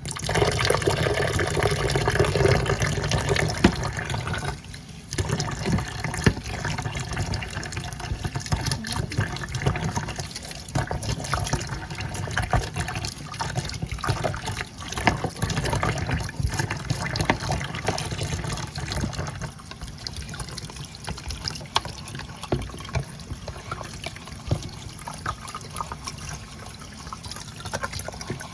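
Water running from a tap into a kitchen sink and going down the drain, with the gurgling (gobo-gobo) that a dirty, partly clogged kitchen drain pipe makes. It starts suddenly at full flow and is somewhat quieter after about four seconds.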